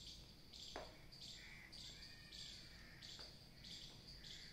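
Faint, even, high-pitched chirping, about two chirps a second, from a bird or insect in the background, with two light taps, one about a second in and one about three seconds in.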